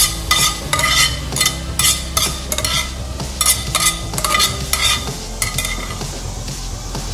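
Background music with a steady beat, about two beats a second over a stepping bass line.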